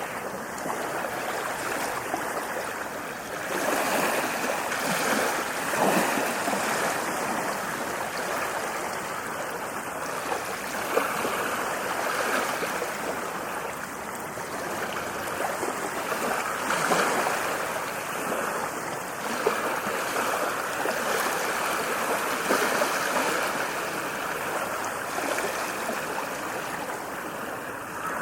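Ocean waves breaking on a beach: a continuous rush of surf that swells every few seconds as each wave breaks and washes up the shore.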